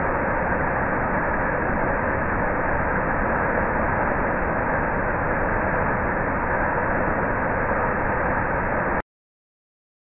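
Waterfall pouring over a rock ledge into a pool, a steady rushing roar that cuts off suddenly about nine seconds in.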